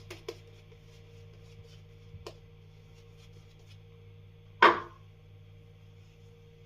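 A few light clicks near the start, another about two seconds in, and one short, louder scrape about four and a half seconds in, from shaving gear being handled; a faint steady hum underneath.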